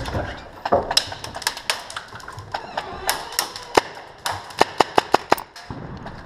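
Tippmann M4 airsoft rifle fired on semi-automatic: scattered sharp shots, then a quick run of about six shots in just over a second near the end.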